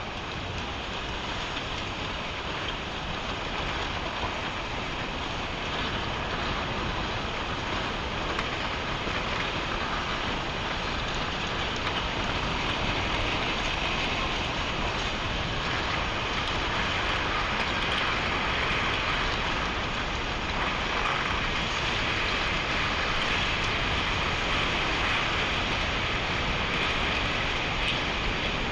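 Tsunami floodwater surging through a town: a steady, dense rushing noise that grows slightly louder.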